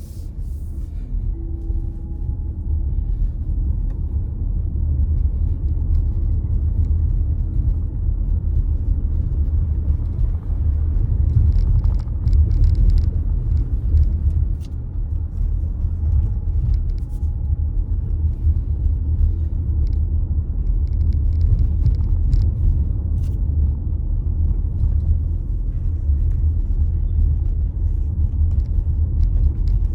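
Car driving: a steady low rumble of engine and road noise that grows louder over the first few seconds, with a few faint ticks.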